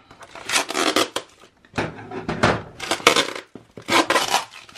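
Clear plastic wrap and tape on a cardboard parcel crinkling and rustling in four or five short bursts as it is cut with scissors and the box is turned over in the hands.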